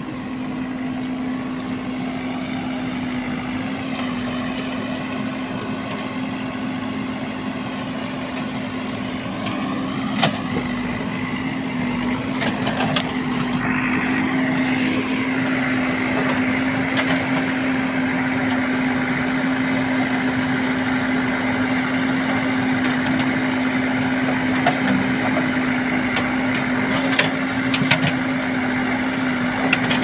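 JCB 3DX backhoe loader's diesel engine running steadily with a constant hum, growing louder about halfway through, with a few faint knocks.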